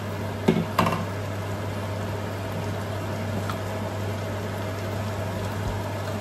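Steady low hum from an induction hob with pots simmering on it, broken about half a second and a second in by two sharp clinks of a glass pot lid being set down.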